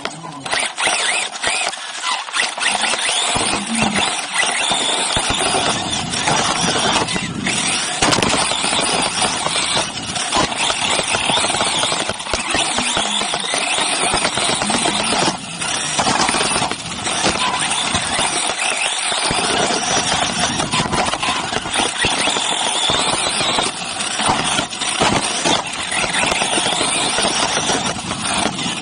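Onboard sound of a 1/8-scale electric RC off-road buggy racing: a continuous high whine from the motor and drivetrain mixed with wind and tyre noise, dipping briefly a few times.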